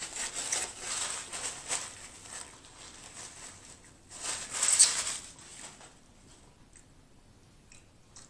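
Close-miked chewing of a bite of fried chicken sandwich, with crackly crunching for the first couple of seconds. Then a louder rustle of a paper napkin wiped across the mouth, about four seconds in.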